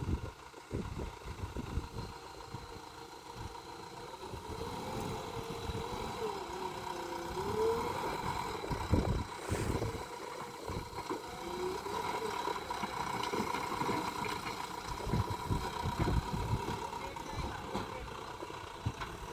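JCB 3DX Plus backhoe loader's diesel engine running, with a steady high whine and irregular low knocks and rumbles.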